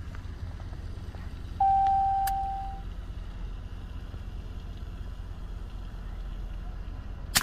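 Truck engine idling steadily. About a second and a half in, a single steady tone rings and fades over about a second. Near the end comes one sharp crack: a .22 Brocock Atomic XR PCP air rifle firing.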